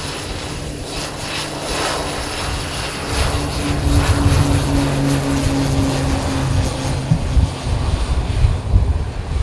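Short 360's twin PT6A turboprop engines at takeoff power during the takeoff roll: a steady propeller drone that grows louder about three seconds in as the aircraft passes, turning into a rougher low rumble near the end.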